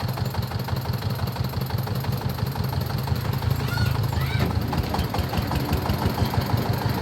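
Diesel engine of a corn-threshing machine running steadily with an even, rapid beat. About four seconds in, a short high call with rising and falling pitch sounds over it.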